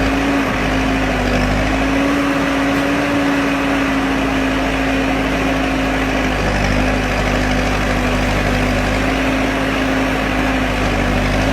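Bull backhoe loader's Kirloskar 4R1040 diesel engine running steadily, with a strong steady whine over it that wavers slightly in pitch.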